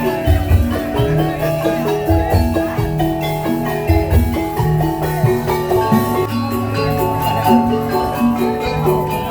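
Tongklek band music: bright melodic notes like a marimba or xylophone over held bass notes, with a low drum thumping on the beat.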